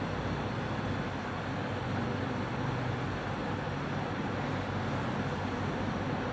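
Steady background noise: a constant low hum with hiss over it, unchanging throughout.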